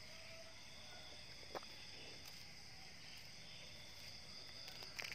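Crickets chirring steadily and faintly, with one short click about a second and a half in.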